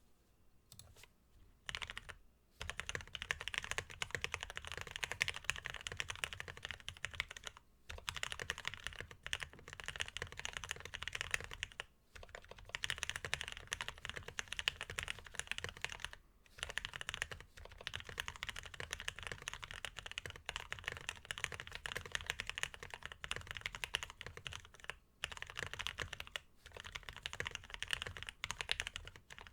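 Fast typing on a custom tenkeyless mechanical keyboard with lubed Polaris Gray 62 g linear switches in an aluminium plate, under GOK BoW keycaps: a dense stream of keystroke clacks in runs of several seconds, broken by short pauses.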